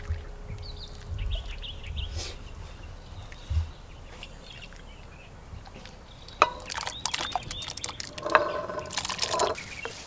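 Boiled loquat-leaf water being ladled from a cast-iron pot and strained through cheesecloth: liquid pouring and trickling. From about six seconds in there is a dense run of sharp knocks and clatter.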